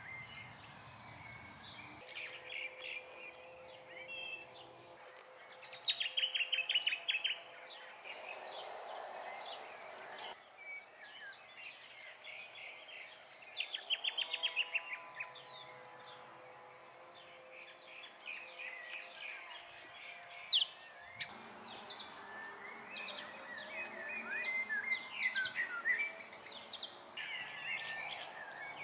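Several wild birds chirping and singing, with two loud, fast trills about 6 and 14 seconds in.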